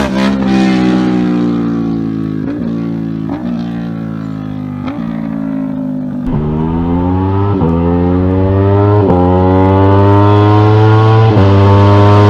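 Aprilia 660 parallel-twin motorcycle engine through the exhaust. For the first half the note falls as the bike slows, with a few short blips. From about halfway it accelerates hard, the pitch climbing and dropping back at each of several quick upshifts.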